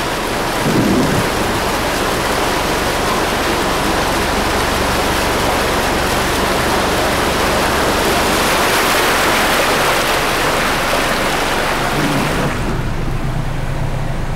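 Loud, steady rushing noise with no separate splashes or strokes. About twelve and a half seconds in it drops away suddenly, leaving the low steady hum of a car engine.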